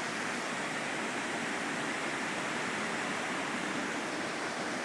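Rain falling steadily in wind, an even hiss that holds level throughout.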